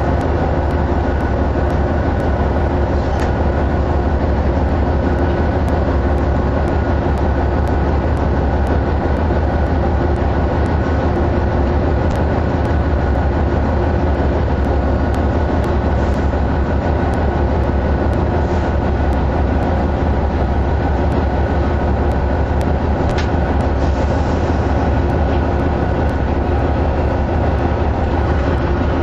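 GE C44AC diesel-electric locomotives running steadily with a coal train during unloading: a deep, constant engine drone with a steady whine over it and scattered light clicks from the train.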